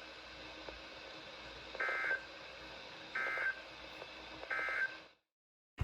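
Emergency Alert System end-of-message signal: three short bursts of warbling SAME data tones, about a second and a half apart, over a faint steady hum. The bursts mark the end of the alert.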